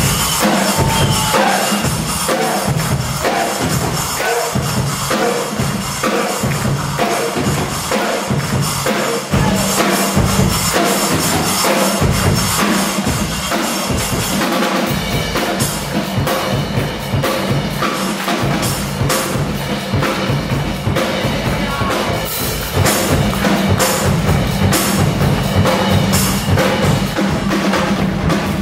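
Loud music with a steady, driving drum beat. The beat fills out with rapid high strokes about halfway through and grows louder near the end.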